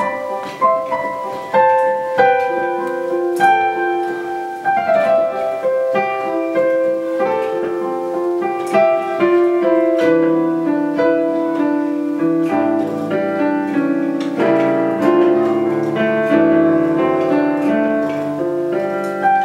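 Digital keyboard playing slow piano chords, each note struck and left to ring, with the chords changing every second or two.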